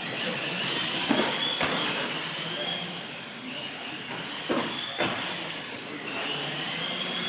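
Electric motors and gears of radio-controlled monster trucks whining high as they race, the pitch rising and falling with the throttle. A few sharp knocks, about a second in and twice near the middle, as the trucks hit or land.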